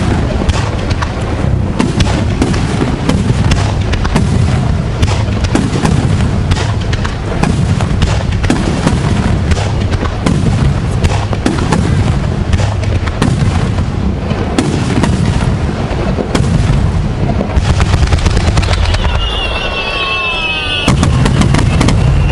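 Fireworks display: a dense, continuous barrage of shell bursts, booms and crackles following close on one another, with a steady low rumble underneath.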